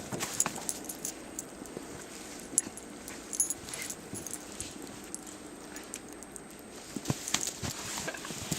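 Golden retriever moving about in snow: scattered short crunches and clicks over a faint steady hiss.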